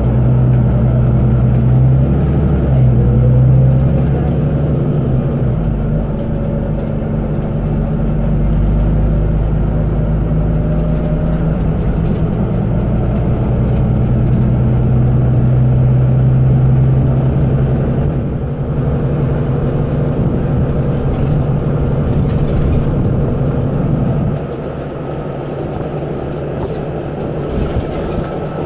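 Volvo B9TL double-decker bus's diesel engine, heard from inside the bus as it drives, with a steady low engine note and road noise. About 24 seconds in, the engine drops back and the sound gets quieter, as when the bus eases off or slows.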